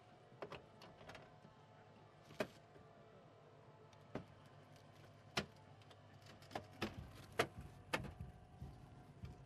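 Hydraulic rescue tool biting into a car's roof: scattered sharp cracks and snaps of metal and trim giving way, the loudest around the middle and in the last few seconds, over a low steady hum.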